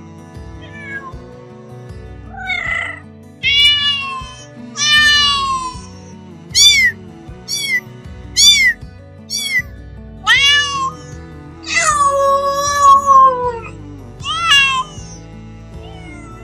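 A cat meowing repeatedly, about a dozen separate meows, mostly short, with one long drawn-out meow near the end, over steady background music.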